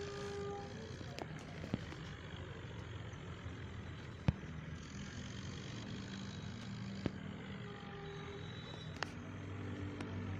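Swaraj 855 tractor's three-cylinder diesel engine running steadily while pulling a loaded trolley, with a few sharp knocks scattered through.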